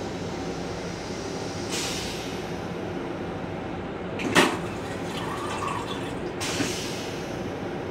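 Stainless steel toilet on an MTA Metro-North M7 railcar flushing. A hiss of rinse water comes about two seconds in, a sudden loud whoosh about four and a half seconds in, and a shorter hiss near the end, over the steady rumble of the moving train.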